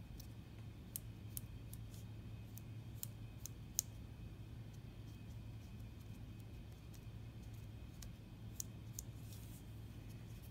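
Sparse small clicks and light scratching of a wooden pencil tip pressing lines into craft foam on a cardboard collagraph plate, clustered in the first few seconds and again near the end, over a low steady hum.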